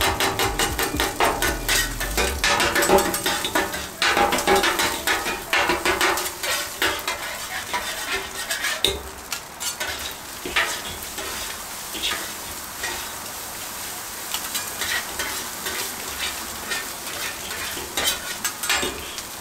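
Metal spatula and fork rapidly chopping and tapping on a hot flat-top griddle as egg is chopped and mixed into fried rice, over a steady sizzle of frying food. The tapping thins out after about eight seconds, leaving mostly sizzling with occasional scrapes and taps.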